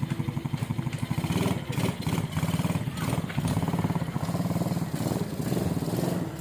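Small ATV engine running steadily at low to moderate speed, its note rising and falling slightly.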